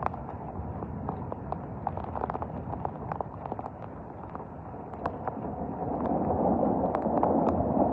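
Heavy thunderstorm rain and wind as a steady rushing noise, with scattered sharp taps throughout; it grows louder about six seconds in as the downpour and gusts strengthen.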